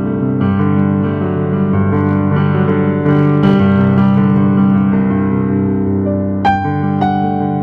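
Instrumental keyboard music: held chords on a piano-like keyboard, shifting every second or so, with a brighter struck note about six and a half seconds in.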